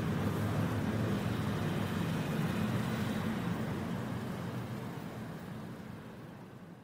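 Road traffic ambience: a steady rumble of vehicles that fades out over the last few seconds.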